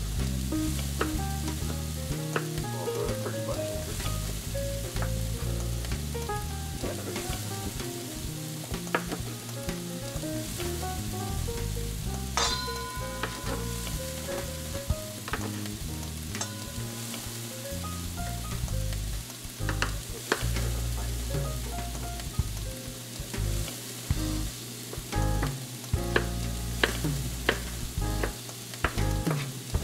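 Chef's knife dicing Roma tomatoes on a cutting board, with short sharp chops that come thick and fast near the end, over a steady frying sizzle and background music with a stepping bass line.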